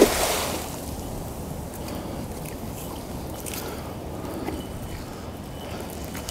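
A cast net hitting the water in a wide splash right at the start, fading within about half a second; after that, a steady hiss as the net sinks.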